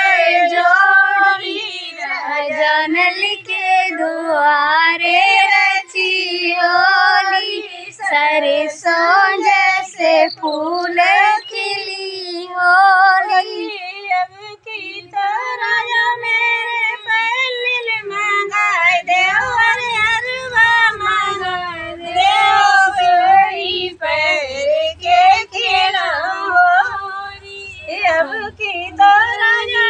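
Women singing a traditional Holi folk song (hori) in high voices, with long held, wavering notes.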